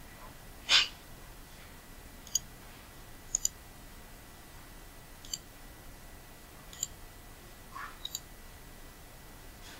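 Computer mouse buttons clicking, single clicks and two quick double clicks spread irregularly. A louder short puff of noise comes near the start.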